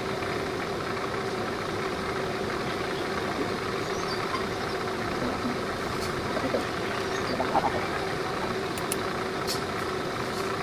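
Bucket truck's engine idling steadily, a constant hum. A few faint sharp clicks come near the end.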